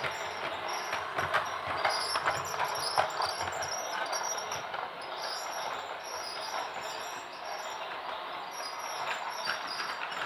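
Toy train running: a steady mechanical rattle with scattered clicks.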